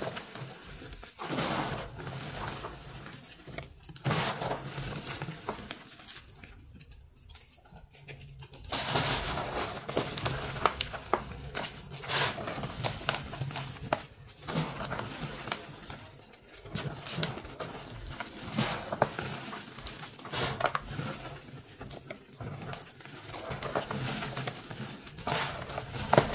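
Colored chalk blocks crushed and crumbled by hand: dense dry crunching and crackling, with a quieter pause about six to eight seconds in.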